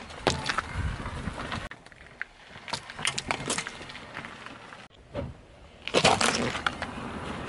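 Car tyre rolling over objects on asphalt one after another: soft jelly candies squashing, plastic clothes pegs cracking, then a plastic yogurt cup bursting with the loudest crack about six seconds in.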